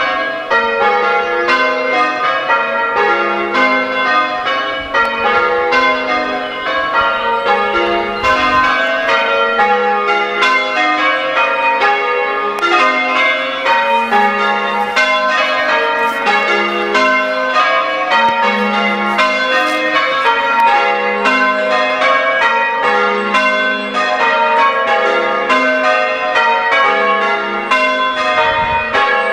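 A ring of six church bells being change rung: an unbroken, even run of strikes, each bell ringing on into the next.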